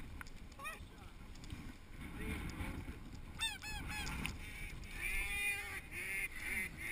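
Snow geese honking: scattered high calls that bend up and down, with a quick run of several about three and a half seconds in and more near the end.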